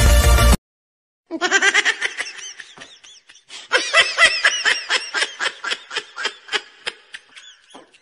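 Electronic dance music cuts off in the first half-second. Then a dog screams in rapid, high-pitched repeated yelps, about four a second with one short break, in distress at being held down on an examination table.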